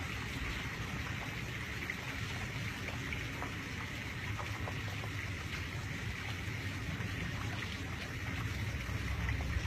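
Heavy rain falling steadily, with scattered drop ticks over a low rumble.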